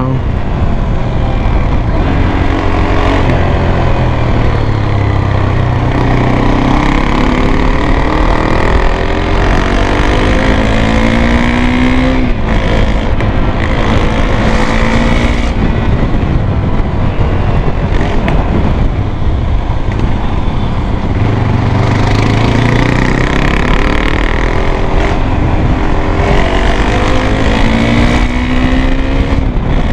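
KTM Duke 390's single-cylinder engine running through an aftermarket Grunt V2 exhaust, heard from the rider's seat while riding. The engine note climbs in repeated rising sweeps as the throttle opens and drops back between them, with a sharp drop about twelve seconds in. A low rumble of wind runs underneath.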